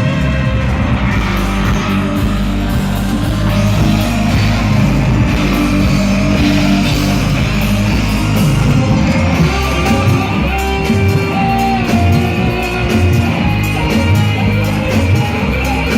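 Loud music with heavy bass played through a large PA sound system during a sound check.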